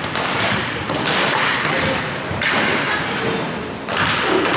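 Roller hockey play on an indoor rink: several sharp knocks and thuds of sticks, puck and skates over a steady haze of rolling and shuffling noise.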